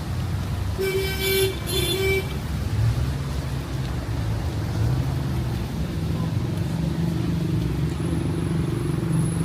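Street traffic with a nearby vehicle engine running as a steady low drone. A vehicle horn sounds two short beeps about one and two seconds in.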